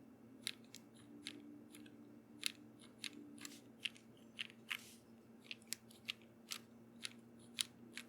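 Separate keystrokes on a custom mechanical keyboard (Velocifire Sun68 with lubed Kingfisher switches, GMK keycaps and a polycarbonate plate), pressed one at a time at about two a second with uneven gaps, each a short, sharp click.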